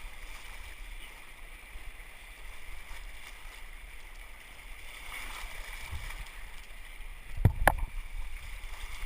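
Steady rushing of river water around a rowed raft, with two sharp knocks close together near the end.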